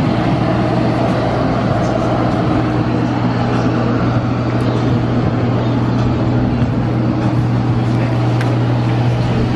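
A motor running steadily: a constant low hum with a noisy rush over it, unchanging throughout.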